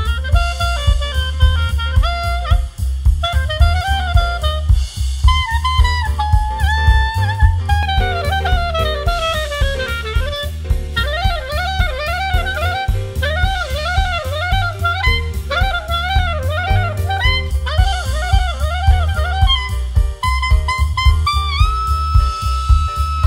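Instrumental swing jazz with a melodic lead line over a heavy, steady bass and a drum kit, ending in a long held note. The playback switches between the original track and the same track recorded through Skullcandy Crusher ANC 2 headphones with noise cancelling on.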